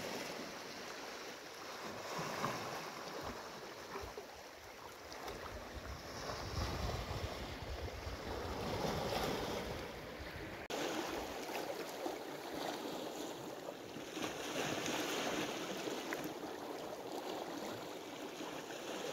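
Small sea waves lapping and washing over shoreline rocks, swelling and ebbing.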